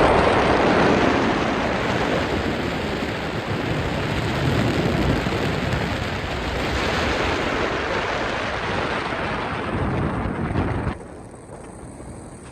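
Wind buffeting the microphone aboard a moving tour boat, a steady rush mixed with the boat's running noise and water. About eleven seconds in it drops abruptly to a much quieter hiss.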